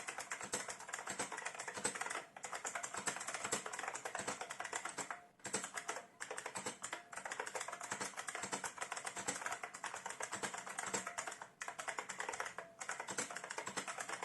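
IBM Model M buckling-spring keyboard being typed on rapidly, a fast stream of clacky keystrokes broken by a few short pauses.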